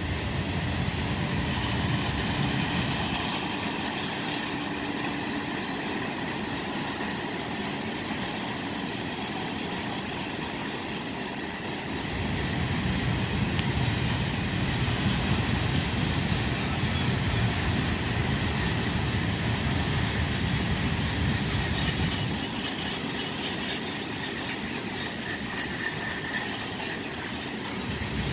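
Freight train cars rolling past: a steady rumble and rattle of wheels on the rails, swelling louder for about ten seconds in the middle.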